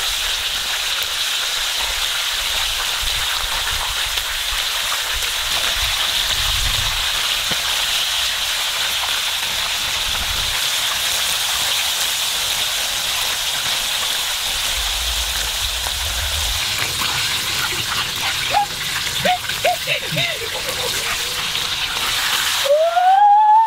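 Whole chicken deep-frying in hot oil in an iron pot: a steady sizzle and bubbling. Near the end the sizzle cuts off suddenly and a loud tone glides up and then back down.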